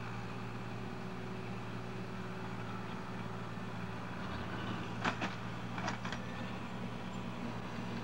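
Engine of a heavy construction machine running steadily, with two sharp knocks about five and six seconds in.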